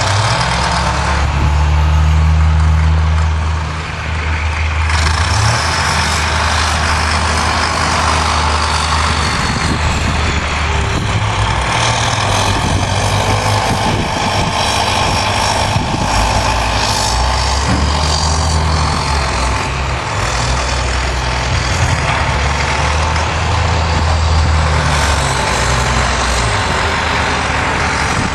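Street traffic: heavy vehicle engines running with a deep low rumble that rises and falls, over steady road noise.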